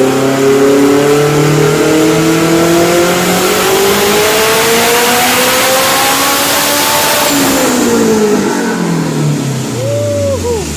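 Turbocharged Honda Civic engine making a full-throttle pull on a chassis dyno: the revs climb steadily for about seven seconds, then fall away as the throttle closes, with a brief whistle near the end.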